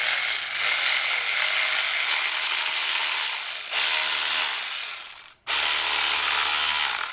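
Husky 12-volt cordless 3/8-inch ratchet running free. It runs in two bursts, stopping suddenly for a moment about five and a half seconds in, then starting again.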